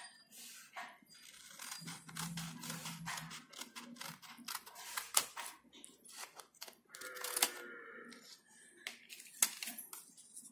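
Small scissors snipping through coloured paper, with paper crackling as it is handled. The snips and clicks come irregularly, a few of them sharper than the rest.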